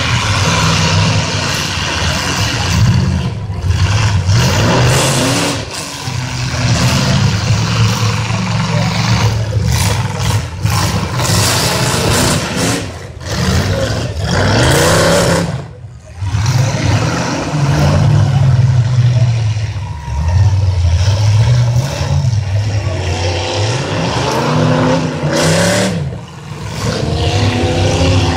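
Demolition derby cars' V8 engines revving hard, rising and falling over and over, with the bangs of metal-on-metal collisions between them.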